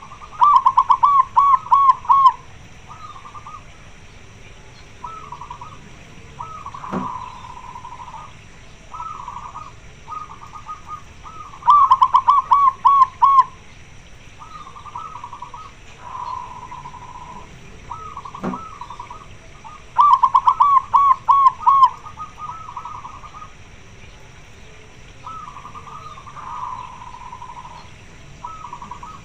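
Zebra doves (perkutut) cooing. Three loud bouts of the song come at intervals of about eight seconds, each a quick run of six to eight staccato coo notes, with softer coo phrases from other doves in between. It is presented as a female perkutut calling to males, wanting to mate.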